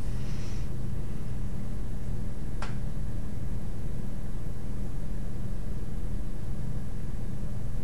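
Steady low hum and hiss of background noise, with a single sharp click about two and a half seconds in.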